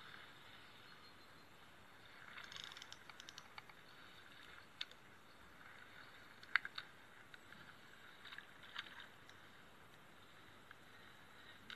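Spinning rod and reel being cast and worked: scattered small clicks and ticks over a faint steady hiss. The loudest is a single sharp click about six and a half seconds in.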